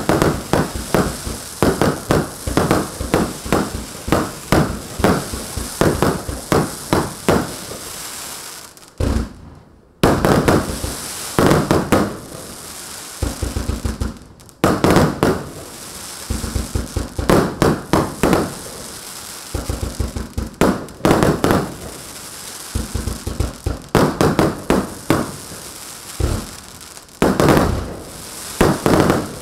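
Red Wire Dropbox Hero 150-shot fireworks cake firing a rapid run of shots and bursting shells, with brief lulls about nine and fourteen seconds in.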